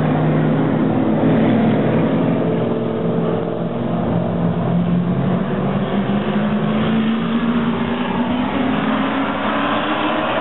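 A pack of short-track stock cars running together past the fence, several engines at once. The engines go on as the pack moves around the far side of the oval, with their pitch rising near the end.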